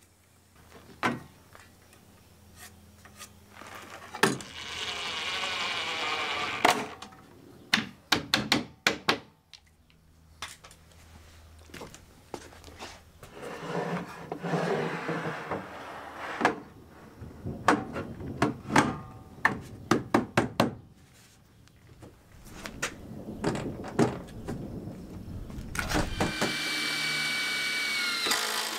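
Knocks, clicks and clatter of an aluminum leg brace and a plywood panel being handled against a steel-legged workbench. Near the end a Ryobi cordless driver runs with a steady motor whine that drops slightly in pitch as it drives a screw into a leg hinge.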